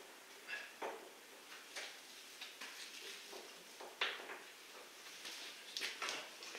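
Faint, scattered clinks and taps of metal hand tools being picked up and handled in a workshop, with a sharper knock about four seconds in and a few quick clicks near the end.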